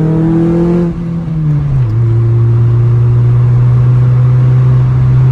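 Mini Cooper's four-cylinder engine, fitted with a sports exhaust manifold, droning steadily under way. Its pitch eases down between about one and two seconds in as the revs drop, then holds steady at the lower note.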